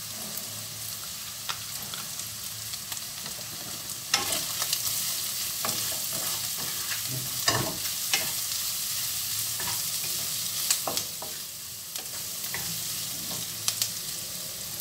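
Diced chicken sizzling in a nonstick wok over a gas flame as a wooden spatula stirs it, with a few sharp knocks of the spatula against the pan. The frying grows louder about four seconds in and eases off near the end.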